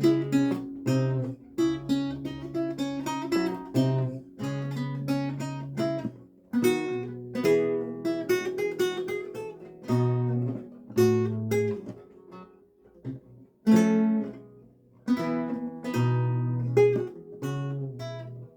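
Renaissance lute playing: plucked notes and chords over held bass notes, with brief pauses between phrases about six seconds in and again around twelve to thirteen seconds.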